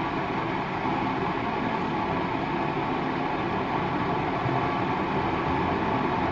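Keurig K-Elite single-serve coffee maker running steadily while it heats and brews, an even hum and hiss with no breaks.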